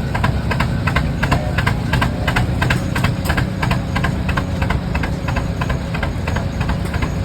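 Rumely OilPull tractor engines running steadily, their slow two-cylinder exhaust beating about three to four times a second.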